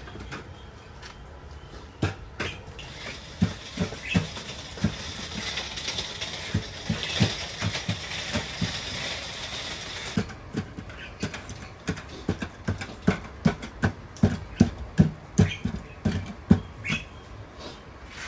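A run of short knocks and clicks from food preparation, coming irregularly and then quicker, about two or three a second, in the second half. A steady hiss in the first half cuts off suddenly about ten seconds in.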